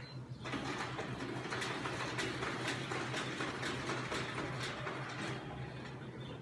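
Office photocopier starting up right after its panel is pressed and running with a rapid, regular clicking, about three to four clicks a second, for around five seconds before stopping near the end. A steady low machine hum runs beneath.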